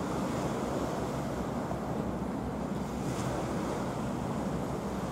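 Steady wind and sea waves, with wind rumbling on the microphone.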